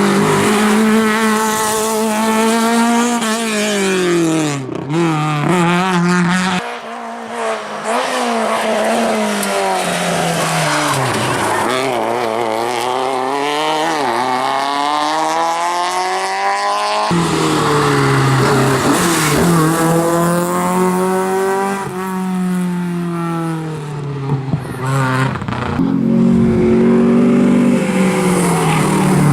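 Rally car engines at full throttle, the pitch climbing through each gear and dropping at the shifts and on braking. The sound cuts abruptly from one car to the next twice.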